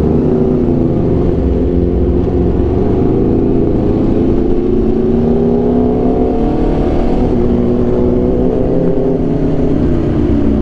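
Aprilia RSV4 1100 Factory's V4 engine with an SC Project exhaust, running under way: its pitch climbs slowly for a few seconds, levels off, then eases down near the end, with a low rush of wind and road noise underneath.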